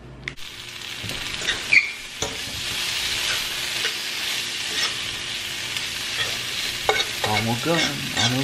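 Green beans sizzling in a hot stainless steel skillet. The hiss starts suddenly about half a second in, with small clicks as the beans are moved about in the pan.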